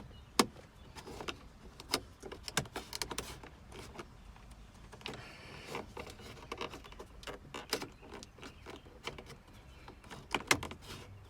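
Plastic trim removal tool prying at the dashboard cup holder housing: a string of irregular sharp plastic clicks and taps, with a short scrape about five seconds in.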